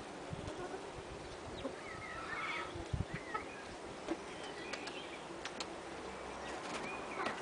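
Scattered short bird chirps and calls, with a couple of low thumps about half a second in and again about three seconds in.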